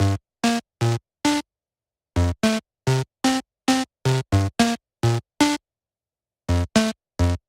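Electronic music: a rhythmic run of short, clipped synth notes with full silence between them, stopping dead for about a second twice.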